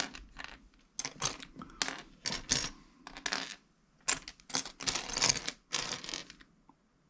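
Small plastic Lego pieces clicking and clattering in quick bunches as they are picked out and sorted by hand, with a longer run of clatter from about four to six seconds in.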